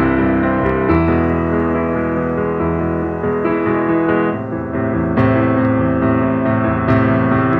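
Background piano music playing slow, sustained chords, with new chords struck every second or two.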